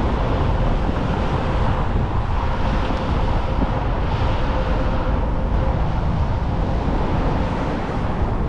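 Steady rumble and running noise of a light rail train in motion, with a faint steady electric hum.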